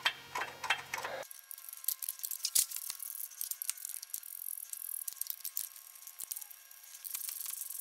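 Irregular light metallic clicks and rattles of a metal bracket and its bolts being handled and fitted by hand.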